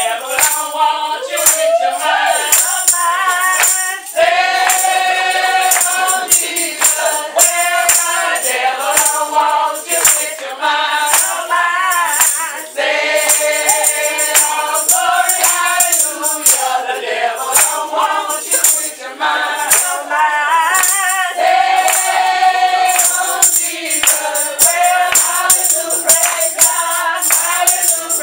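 Church congregation singing a hymn together, with short breaks between lines. A shaken percussion rattle keeps a quick, steady beat.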